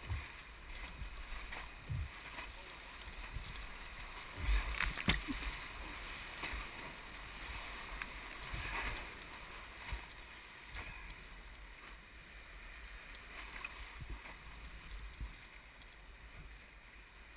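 Whitewater rushing around an inflatable raft running a rapid, with water splashing over the bow and low thumps and knocks against the raft and camera, the loudest about five seconds in.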